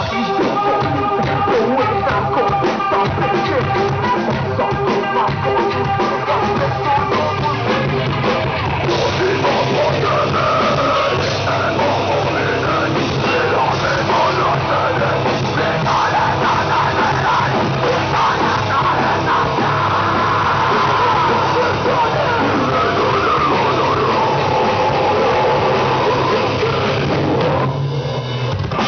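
Live rock band playing loud: electric guitars, bass and drum kit, with a singer's vocals over them, the music dropping back briefly near the end.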